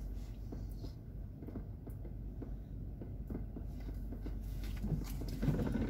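Toyota Camry SE's engine idling, a low steady hum heard from inside the cabin, with a few faint scattered ticks.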